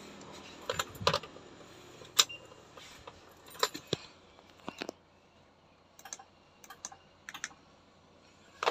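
Irregular sharp clicks and light taps in small clusters inside a truck cab, louder in the first half, with no horn sounding: the air horn's tank has no air yet.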